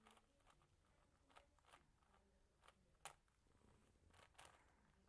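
Near silence, with a few faint plastic clicks from a MoFang JiaoShi MeiLong Kilominx being turned by hand. The clearest click comes about three seconds in.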